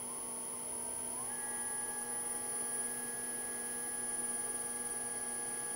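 Two Siemens servo motors driven by Simovert MasterDrive inverters running with a steady electrical whine and hum. A tone rises in pitch over the first second or so as the second motor ramps up to speed, then holds steady.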